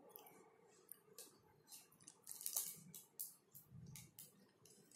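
Faint, irregular crinkling and clicking of a foil snack packet being tugged and handled, thickest around the middle.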